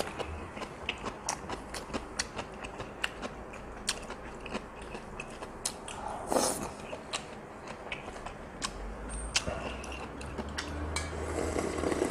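Close-miked mukbang eating: a person chewing and smacking on intestine stew, with many small wet clicks. About halfway there is a loud slurp of ramen noodles, and near the end a longer slurp of broth from a bowl.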